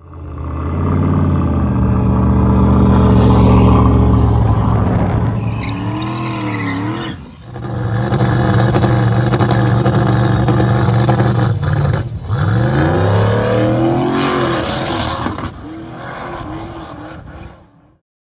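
Car engine at full throttle on a drag-strip pass, accelerating hard. It dips briefly twice, about seven and twelve seconds in, and the pitch climbs again after each dip, like gear changes. It fades away over the last few seconds.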